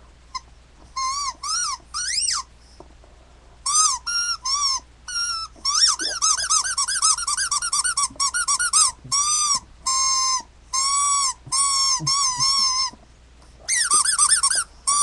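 Squeaky Mew toy squeezed over and over: short high-pitched squeaks, each rising and falling in pitch, in quick runs, with a pause about two and a half seconds in and another near the end.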